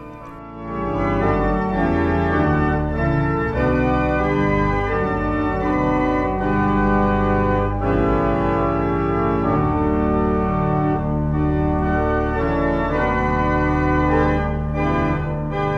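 1899 J. J. Binns pipe organ playing a slow passage of sustained chords over deep pedal notes, coming in about half a second in.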